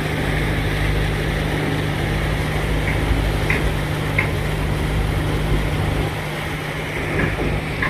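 A small river cruise boat's engine running steadily under way, a constant low hum, with the rush of the wake churning behind the stern.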